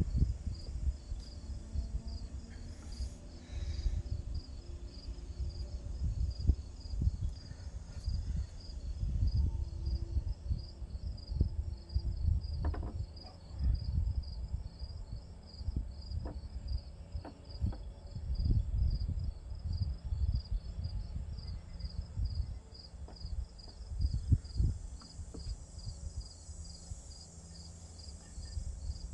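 Insects chirping in a fast, even pulse throughout, over a low rumble that swells and fades. Occasional light clicks and knocks come from carburetor parts being handled and refitted.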